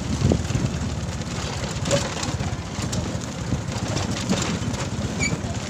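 Motorcycle engine running with a steady low rumble, heard from aboard the moving bike on a dirt road.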